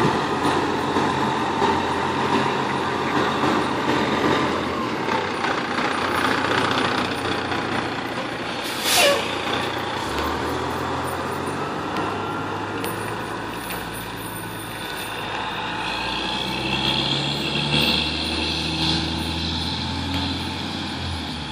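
1999 Pierce Dash aerial ladder fire truck's diesel engine running as the truck pulls away. A short, sharp air-brake hiss comes about nine seconds in. After it the engine note steps up as the truck accelerates off.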